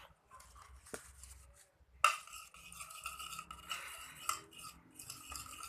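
A stirrer scraping and clinking against the side of a container as a clear-glue slime mixture is stirred. It is faint at first, then from about two seconds in it turns into brisk, continuous scraping with a ringing tone.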